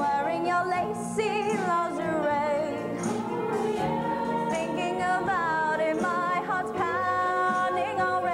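Music: a song with a singing voice holding wavering, drawn-out notes over sustained instrumental backing.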